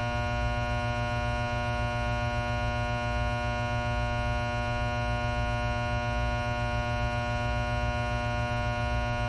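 Steady electrical mains hum with a buzzing edge, unchanging throughout. It stands for current passing through test-lead electrodes pushed into a raw egg to fry it.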